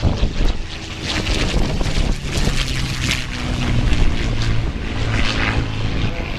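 P-51 Mustang's piston engine droning in the air, partly buried under heavy wind buffeting on the microphone.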